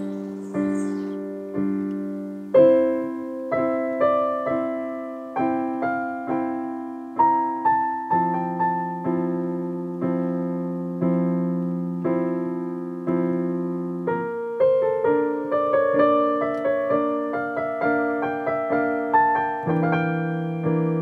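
Piano played slowly, notes and chords struck about twice a second and left to ring.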